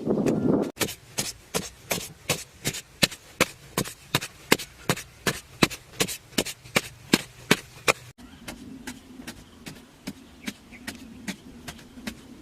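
Rapid, evenly spaced strikes of a hand tool, about three a second. Near the end they cut off abruptly, giving way to fainter ticks over a steady low hum.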